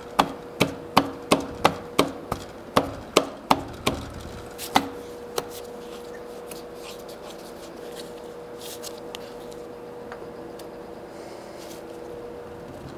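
A run of sharp clicks or knocks, about three a second, for roughly four seconds and then twice more, from hand work on the head of a DoAll drill press being reassembled; a faint steady hum remains afterwards.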